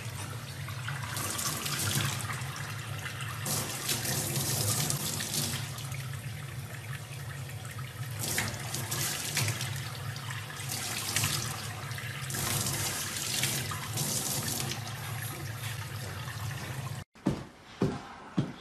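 Tap water running into a stainless steel sink, with uneven bursts of splashing as a young chimpanzee moves about under the stream. Near the end the water sound cuts off abruptly and a few short, sharp, louder sounds follow.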